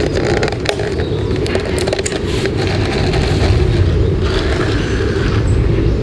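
Wind rumbling steadily on the microphone, over scattered clicks and scrapes as a plastic cup of iced coffee with ice cubes in it is handled.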